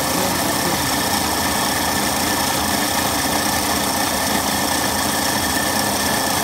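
Electric vehicle's motor and drive spinning at a steady speed of about 1,750 rpm: a steady mechanical whir with several steady whining tones.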